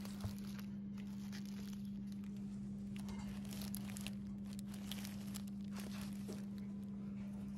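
Plastic-packaged craft kits on a hanging display hook crinkling and rustling faintly as they are flipped through, over a steady low hum.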